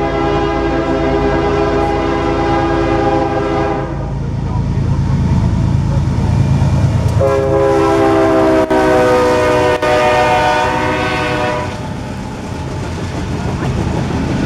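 CSX diesel freight locomotive's air horn sounding two long chord blasts over the locomotive's low engine rumble. The second blast sags slightly in pitch as the locomotive passes close by. After that comes the steady rumble of covered hopper cars rolling past.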